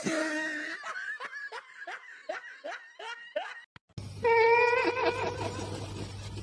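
A person laughing in a quick run of short, falling 'ha's, about three a second. After a break comes a longer held pitched call.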